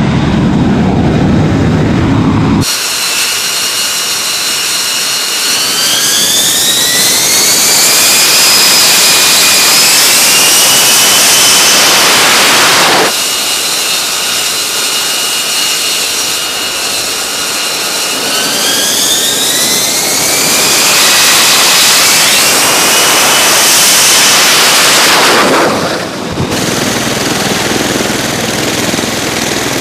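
Jet engine noise across several cut shots. A deep rumble comes first, then the high whine of an F-35B fighter's engine rising in pitch as it spools up. This happens twice, and each time it is broken off suddenly. Near the end a steadier engine noise takes over.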